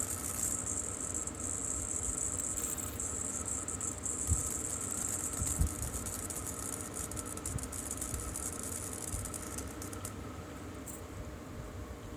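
Flux-core wire welder running a bead on thin steel strips, a steady crackling sizzle that thins out in the second half and stops near the end.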